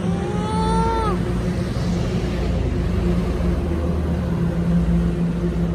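Steady engine hum with a low rumble. A man calls out once, a single drawn-out shout, about half a second in.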